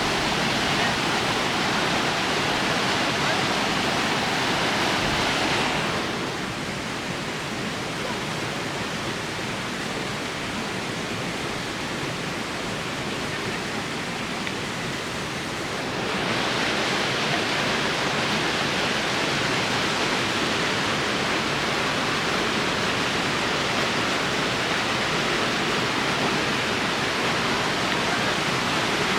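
Steady rushing roar of a waterfall pouring into a pool. It turns softer and duller for about ten seconds in the middle, then returns to full strength.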